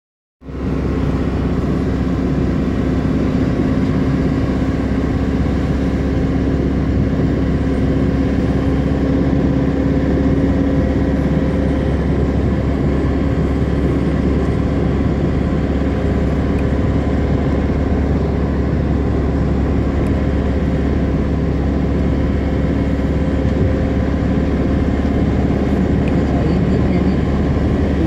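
Steady road and engine noise of a moving car, heard from inside the cabin, with a constant low hum.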